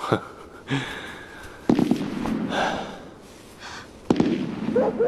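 Gunshots in the distance: three sharp cracks with echoing tails, the first right at the start, the next about a second and a half later and the third about two and a half seconds after that.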